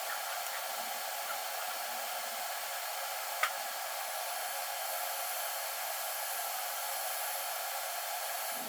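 TIG welding arc from a Vulcan Omnipro 220 torch fitted with a stubby gas lens: a steady hiss, with one short crackle about three and a half seconds in.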